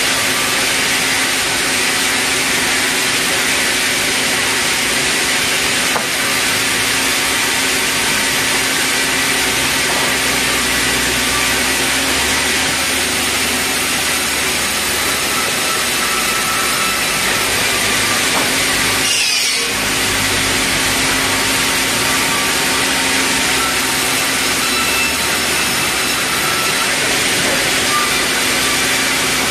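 Sawmill band saw running with a steady whine and hiss as red meranti timber is fed through it and cut. The sound dips briefly about two-thirds of the way through.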